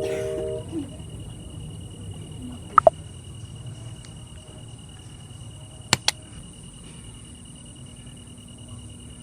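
Steady chirring of insects, with a low rumble beneath it and a couple of short sharp clicks about three seconds and six seconds in. The last notes of background music stop just at the start.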